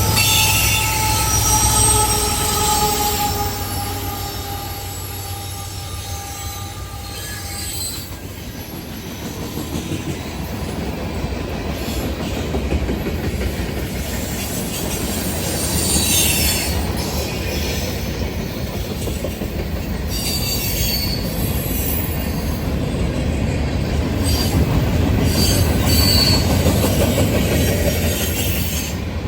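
Freight train cars rolling past on a curve: steel wheels squealing against the rail in several high, steady tones for the first eight seconds or so, then a steady rumble and clatter with short squeals and scrapes.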